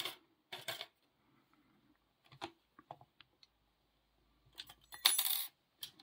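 Small metal lock-picking tools (a tension wrench and pick) clicking and clinking against a brass padlock held in a vise, a few light clicks and then a louder burst of metallic clatter about five seconds in.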